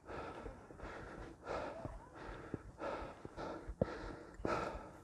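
A hiker breathing hard while climbing a steep stone path, a loud breath about every second, with a few sharp footstep taps on the rock.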